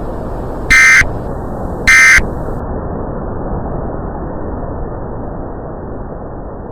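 Emergency Alert System end-of-message signal: two short digital data bursts of the SAME code, about a second apart, the second and third of a set of three. Under them and after them runs a steady low rushing noise.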